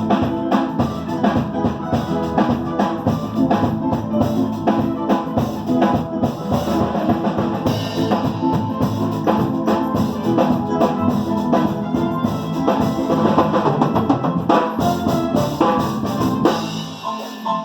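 Music with a steady drum-kit beat under sustained pitched instruments.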